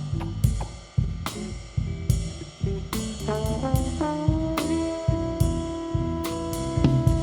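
Live blues band playing an instrumental passage: drum kit and bass keep a steady beat while a lead instrument climbs in a quick run of notes and then holds one long note.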